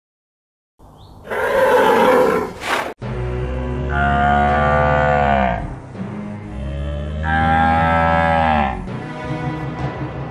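Two long cattle moos, about four seconds apart, each falling in pitch at the end. They come after a loud burst of noise a second or so in.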